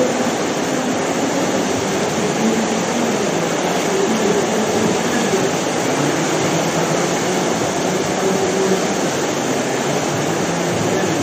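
Whitewater rushing through an artificial slalom channel: a steady, unbroken rush of churning rapids, with faint voices of spectators over it.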